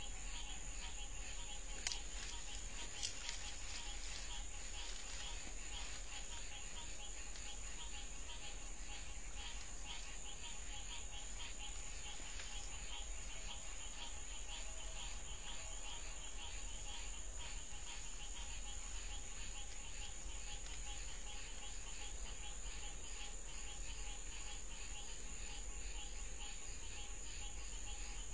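Night insects, crickets, trilling steadily in a dense chorus, with two faint clicks about two and three seconds in.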